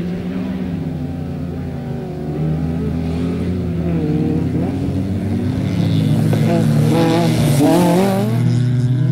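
Peugeot 106 rally car's engine revving hard on a loose dirt track, getting louder as it comes close. Its pitch rises and falls repeatedly, and it is loudest about eight seconds in as the car goes past.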